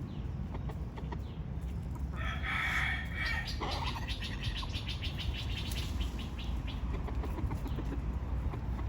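Chickens calling: one loud call about two seconds in, lasting about a second and a half, then a quick run of short repeated clucking notes.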